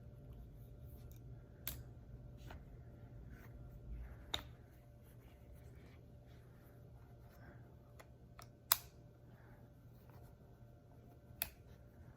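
Faint handling of a revolver and its cleaning tools: a few sharp clicks and light taps spread out, over a low steady hum.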